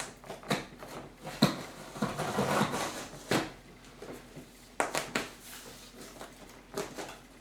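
Hands working an upholstered seat and its cover: rustling of the cover with scattered sharp clicks and knocks, loudest about a second and a half and again about five seconds in.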